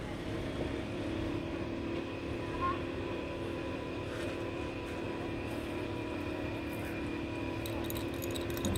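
A steady mechanical hum with a low rumble, like an engine or motor running. Near the end come a few light clicks as flower stems are pushed into the neck of a glass bottle.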